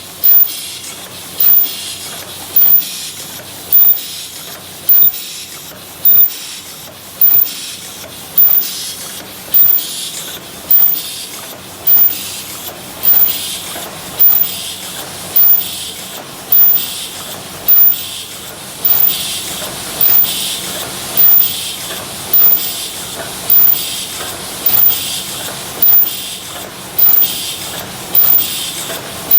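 Paper cup forming machine running: a sharp mechanical beat about once a second over a steady hiss.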